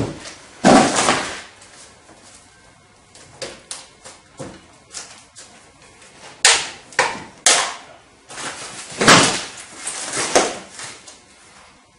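Packing material being cut and pulled off a new bike frame: irregular sharp clicks of cutting, with short bursts of rustling wrapping, the loudest clicks in the second half.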